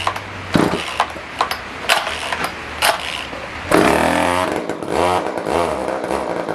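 Poulan Wood Shark two-stroke chainsaw being pull-started: several quick rope pulls, then the engine catches a little over halfway in and runs unevenly, its pitch wavering up and down.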